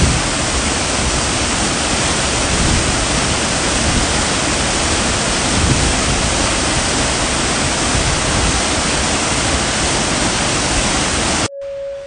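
Mountain stream water rushing steadily. It cuts off suddenly near the end, and a single steady tone begins.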